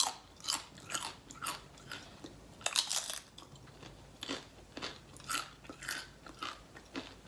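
Close-up eating sounds: a person chewing a mouthful of food, with irregular crunchy, wet bites about one to three a second.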